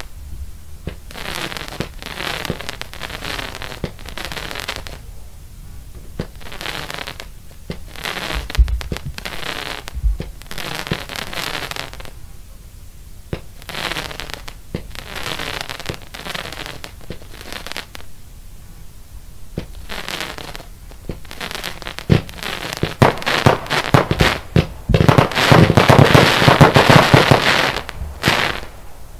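A 16 mm, 84-shot fireworks cake (battery) firing shot after shot, each with a crackling, sparking tail. In the last third the shots come thick and fast in a dense, loud volley of sharp reports and crackle.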